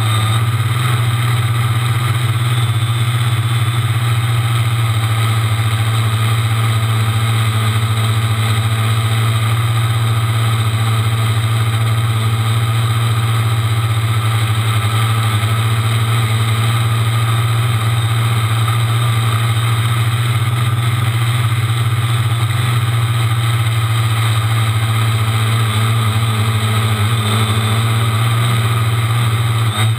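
Quadcopter's electric motors and propellers droning steadily while it hovers, picked up by the GoPro mounted on the craft itself.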